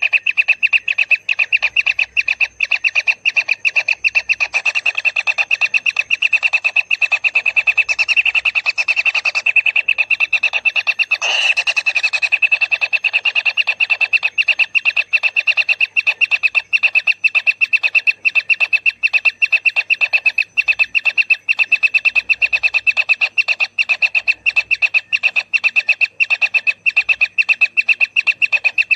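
Kingfisher nestlings giving a continuous, rapidly pulsing, buzzy begging churr, about four pulses a second, steady throughout, with a brief louder burst about eleven seconds in.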